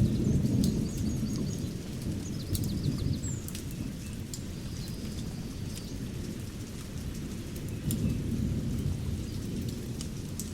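Distant thunder rumbling low, loudest at the start and swelling again near the end, over a crackling fireplace's scattered pops, with a few faint bird chirps early on.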